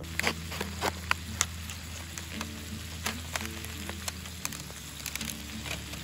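Diced tomatoes and peppers frying in a skillet over a gas camping stove: steady sizzling with scattered sharp crackles and pops.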